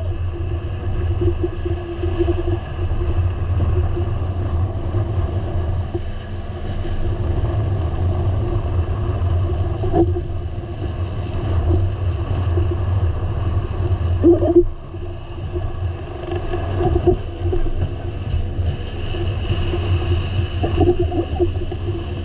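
Boat engine running steadily under way, a continuous low drone with wind and water noise over it.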